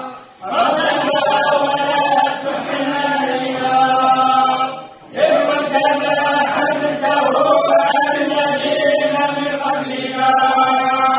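A group of men chanting together in unison in long, drawn-out phrases, each phrase several seconds long, with a brief pause for breath between phrases near the start and about five seconds in.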